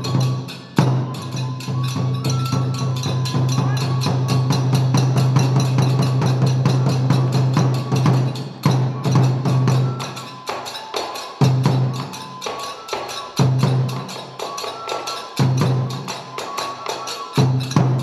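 Kagura accompaniment: a drum beaten in fast, dense strokes with hand cymbals, over a few high held flute notes. From about ten seconds in, the beating breaks into separate, accented strokes with short gaps between them.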